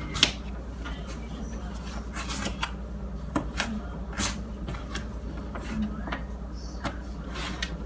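A kitchen knife slicing a sweet potato into thin fry strips on a plastic cutting board: irregular sharp clicks as the blade cuts through and strikes the board, about a dozen spread over several seconds. A steady low hum runs underneath.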